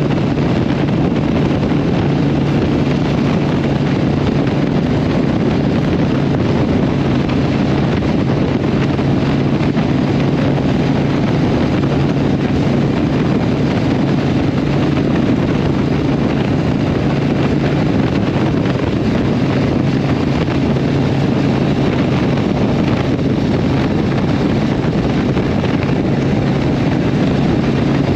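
Harley-Davidson Iron 883's air-cooled V-twin running at a steady cruise of about 50 mph through a Vance & Hines exhaust, its note holding even, with wind rushing over the microphone.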